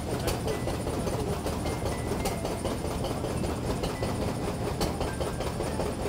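A heavy engine running steadily with a low hum, with a few sharp clicks over it.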